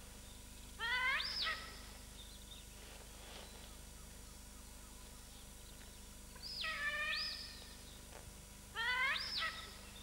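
Giant otter squealing calls: three short squeals, each sweeping sharply up in pitch and falling back, about a second in, around six and a half seconds in, and near the end.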